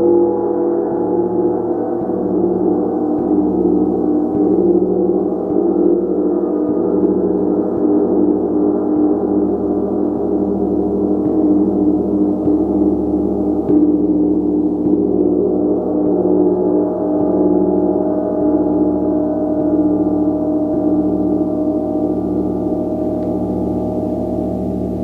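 A gong played continuously in a dense, sustained wash of overlapping tones, kept going by soft strokes about once a second.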